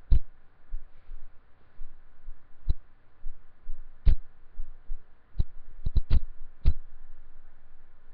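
Irregular sharp knocks and clicks, about nine in eight seconds, from a Zippo lighter being handled close to the microphone, over a faint steady hiss.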